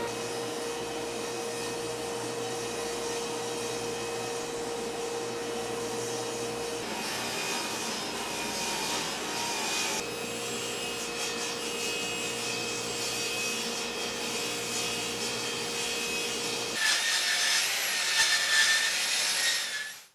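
Table saw ripping walnut: the motor and blade run with a steady whine, and near the end the cut turns louder and harsher as the blade works through the board.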